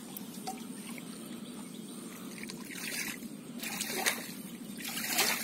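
Muddy water splashing and pouring as a metal pot scoops it out of a shallow pool, three splashes in the second half.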